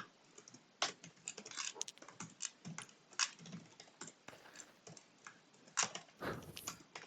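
Typing on a computer keyboard: irregular, scattered keystroke clicks.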